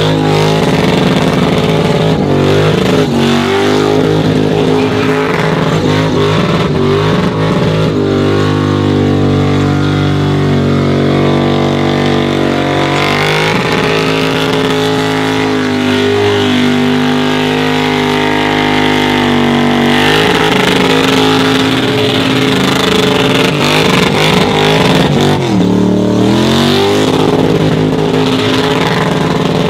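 Car engine held at high revs through a burnout, the rear tyres spinning and squealing in the smoke. About 26 seconds in the revs drop sharply, then climb back up.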